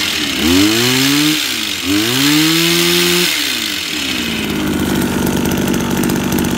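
Small petrol engine of a double-bladed hedge trimmer revved hard: the revs shoot up twice, the second time held high for about a second and a half, then drop back to a steady idle about four seconds in. Its oversized air-filter box gives the engine a punchy intake sound.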